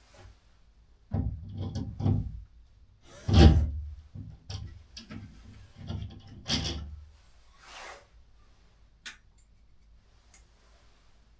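Irregular knocks, bumps and scraping rubs of objects being handled, the loudest knock about three and a half seconds in.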